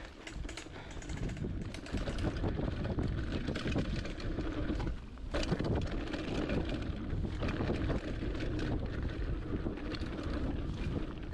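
Wind rushing over the microphone and knobby tyres rolling over a dirt trail as a hardtail mountain bike descends, with frequent short rattles and clicks from the bike over the bumps.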